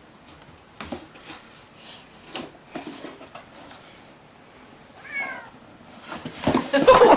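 Scattered light knocks and rustles, then a short animal call about five seconds in, and a louder, longer cry near the end.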